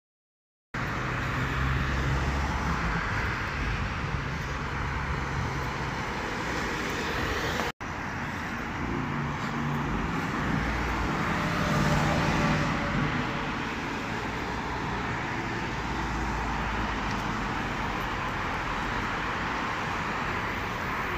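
Steady road traffic noise with a low rumble that swells and fades as vehicles pass, starting about a second in and breaking off for an instant about eight seconds in.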